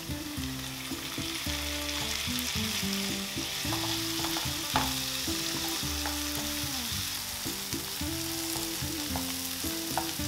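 Diced tomatoes, onion and carrot sizzling in a hot non-stick frying pan while a wooden spatula stirs them, with scattered scrapes and knocks of the spatula on the pan, the loudest knock about halfway through.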